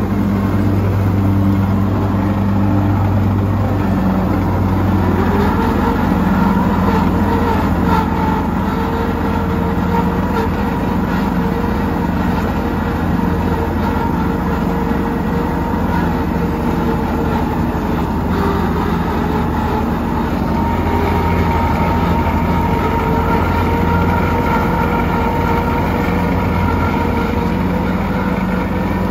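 Zipper TS-22 mower's engine running steadily under way, with small shifts in pitch, on a test run with a newly fitted deck drive belt.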